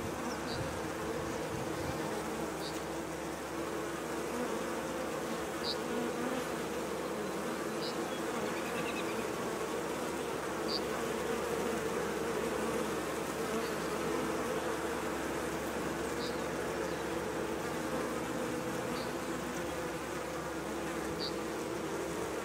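Honey bees buzzing steadily at a hive entrance as workers fly in and out, with a short high chirp every two to three seconds.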